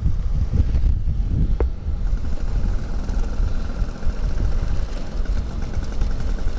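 Vintage Vespa Super 150 scooter's two-stroke single-cylinder engine running on the move, under a heavy rumble of wind on the helmet-mounted microphone.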